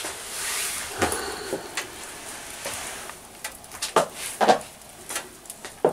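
Wood fire in a wood-fired oven crackling with scattered sharp clicks, a brief hiss at the start, and a couple of louder dull knocks about four seconds in.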